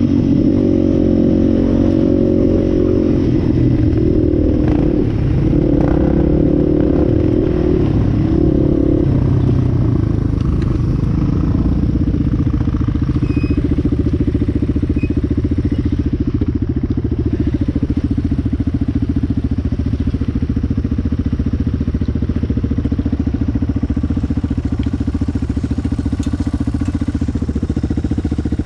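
Utility ATV engine heard close up from on board, running under throttle with the pitch shifting for the first several seconds, then dropping to a steady idle about nine seconds in.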